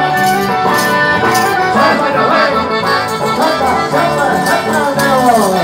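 Live folk band playing a dance tune, led by an accordion with guitar and bass underneath.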